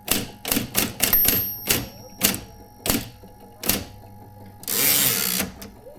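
Adler Junior Electric electric typewriter typing: about ten sharp type strikes at an uneven pace, then a brief mechanical whirr of under a second near the end.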